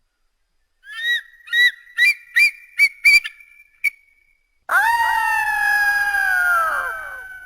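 Pteranodon creature sound effect: about six short, rising chirping calls coming faster and faster, then one long screech that slowly falls in pitch and fades away.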